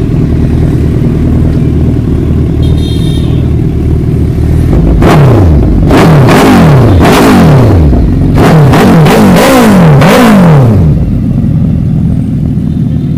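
Suzuki Hayabusa GSX1300R's inline-four idling through an aftermarket DR Racefit slip-on exhaust. About five seconds in it is revved in two bunches of quick throttle blips, about nine in all, each rising and dropping straight back, then it settles to idle.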